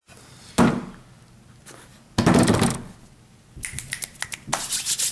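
A padded mailer being handled: a sharp thump about half a second in, a longer burst of rustling around two seconds in, then a quick run of crinkles and taps near the end.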